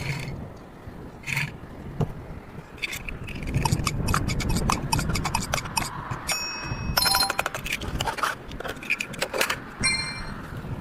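Plastic toy cars clattering and scraping as they are handled, with many quick clicks and knocks. A short burst of high electronic beeping tones comes about six to seven seconds in.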